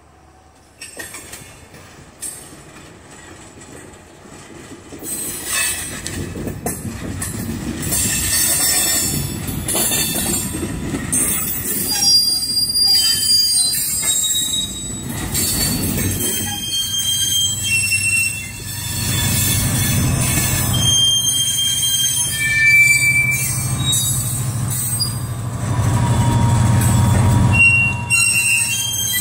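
Florida East Coast Railway freight train of hopper cars rolling past, getting loud from about five seconds in, its wheels squealing in several high, steady tones over the rumble of the cars. Near the end a deep engine drone builds as a diesel locomotive in the train comes closer.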